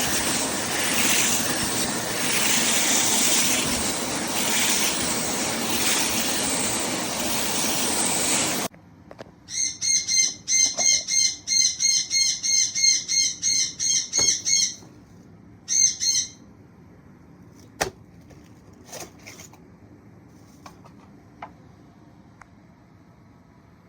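Carpet cleaner running with a loud steady rush of motor and suction that cuts off suddenly, followed by a quick run of high chirps, about four a second, for several seconds, one more short chirp, and a few faint clicks.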